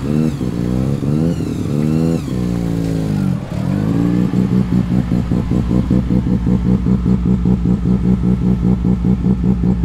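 Mazda RX-2's rotary engine revving in a few quick blips that rise and fall. About four seconds in it settles into a choppy idle that pulses several times a second.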